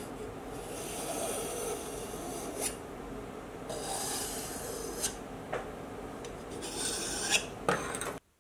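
A hardened metal point scratching layout lines along the layout-fluid-coated face of a mild steel bar, in about three long scraping strokes with a few light clicks between them.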